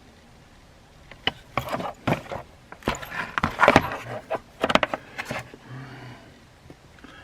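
Handling noise from a cordless handheld tire inflator and its plastic parts: a run of sharp clicks and rattles lasting about four seconds, starting a second in.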